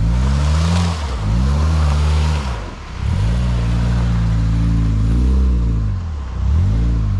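Car engine revved up and down several times, its pitch climbing and falling, as the car sits with its front wheel dug into mud and the driver tries to drive it out.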